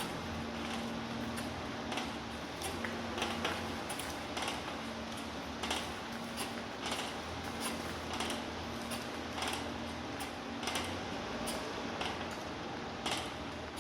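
Irregular short creaks and scrapes, roughly one or two a second, over a steady low hum.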